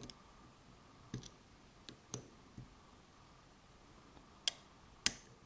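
Faint, irregular small clicks from a pick and tension wrench working the pin stack of a Mul-T-Lock seven-pin padlock, with a sharper click near the end as a pin sets.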